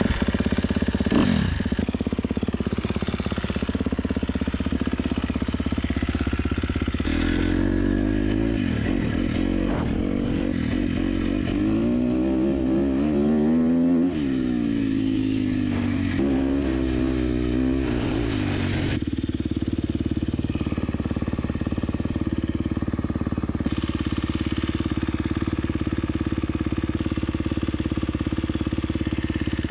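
KTM 250 SX-F four-stroke single-cylinder motocross bike being ridden. The engine pitch climbs and drops again and again through the middle stretch, then holds fairly steady near the end.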